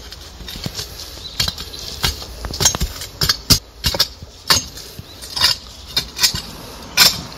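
A long-handled metal digging tool chopping into hard, stony soil: irregular sharp strikes and clinks, several a second, a few of them much louder. The digging is around the roots of a tree being lifted for transplanting.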